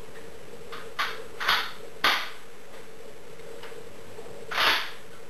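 VHS-D1S carbine being handled between blank shots: a few clicks and clacks from the gun, the sharpest about two seconds in, with softer swelling sounds about a second and a half in and near the end.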